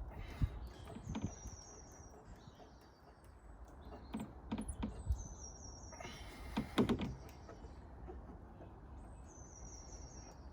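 Faint knocks and clicks of a car parcel shelf and its plastic clip fittings being handled and pushed into place, the loudest about half a second in and again around seven seconds. In the background a bird chirps in short high phrases every couple of seconds.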